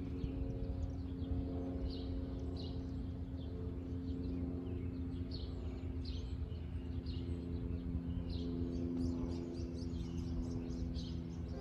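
Small birds chirping, short high calls repeating every half second or so, over a steady low rumble and hum.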